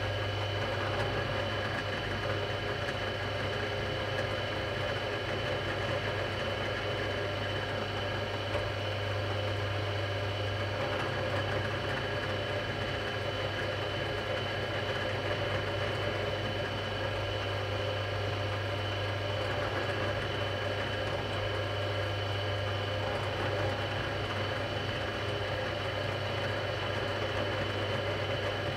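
Benchtop drill press motor switched on and running steadily with a low hum, while small side-dot holes are drilled into a wooden mandolin neck.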